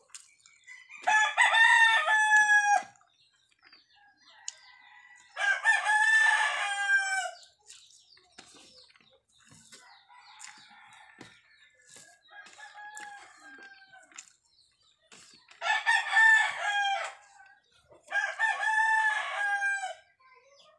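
Rooster crowing: four loud crows of about two seconds each, every one falling away at its end, with fainter crows in between.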